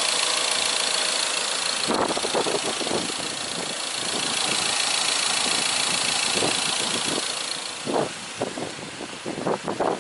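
Ford Transit 350M's diesel engine idling steadily under the open bonnet, sounding healthy. Near the end a series of irregular short thumps and scuffs comes in over it.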